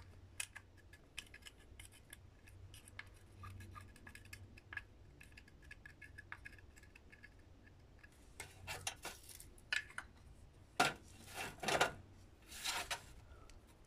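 Small clicks and light taps of hand work, then several louder scraping strokes from about eight seconds in, as ground herb is poked and scraped loose for filling rolling-paper cones.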